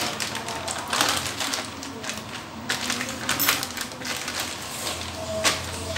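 Clear plastic bag crinkling and rustling as hands handle it and press it flat on the countertop, in irregular crackles.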